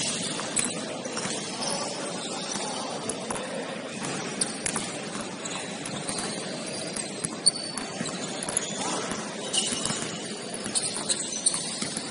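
Basketball game play on an indoor court: sneakers squeaking in short high chirps and the ball bouncing over the steady noise of the gym, with a sharp knock about seven and a half seconds in.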